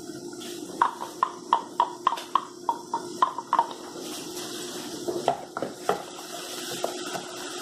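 A wooden spoon tapping the rim of a small glass bowl about ten times, roughly three taps a second, knocking chopped onion and garlic into a pot. A few knocks and scrapes of the spoon stirring in the pot follow.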